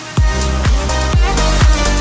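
Electronic dance music with a steady kick-drum beat, about two beats a second, coming in loud just after the start.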